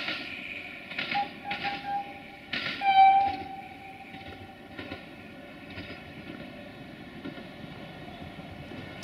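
Duewag-built diesel multiple unit sounding its horn: short blasts in the first two seconds, then a longer, louder blast about three seconds in, over the steady running rumble of the train.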